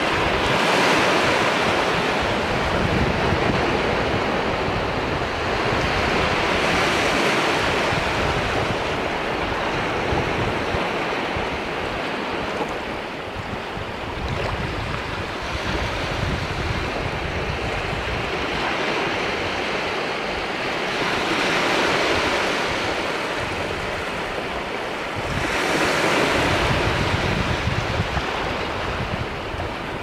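Sea waves washing in over a flat rocky shore: a continuous hiss of surf that swells up about four times as larger waves come in, with wind rumbling on the microphone.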